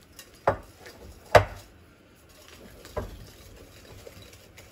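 A mixing utensil stirring a thick chocolate mixture of condensed milk, cocoa powder and melted butter in a bowl, knocking against the bowl a few times, loudest about a second and a half in.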